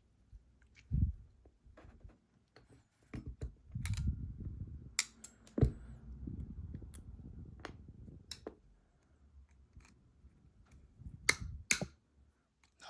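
Sharp metallic clicks and taps of lock picks working the sliders of an ASSA Desmo slider lock, over a low rumble of the lock being handled.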